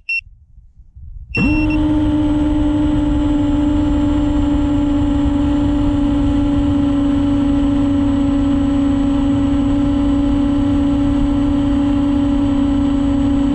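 A loud, steady droning hum on one unchanging pitch with overtones, over a low rumble, starting suddenly about a second and a half in just after two short high beeps.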